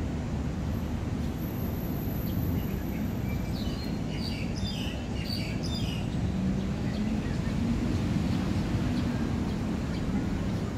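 Outdoor park ambience: a steady low rumble of distant traffic, with birds chirping for a few seconds in the first half.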